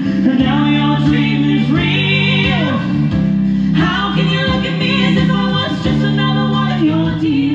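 A vocalist singing over loud musical accompaniment with steady sustained bass notes, as heard from the audience of a live stage show.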